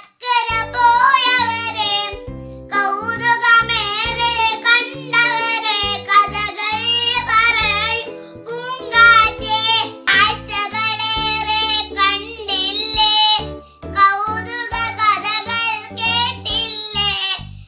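A young girl singing a song in phrases with wavering, held notes, over instrumental backing music.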